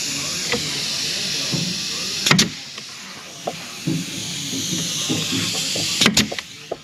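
Pneumatic pin nailer firing twice, two sharp shots about two seconds in and again near the end, driving pins into a cabinet face frame. A steady air hiss runs underneath, with a few small knocks from handling.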